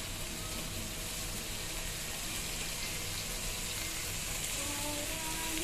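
Spiced onion-tomato curry masala, with ginger-garlic and crushed dried chilli, sizzling steadily in a pan on the stove.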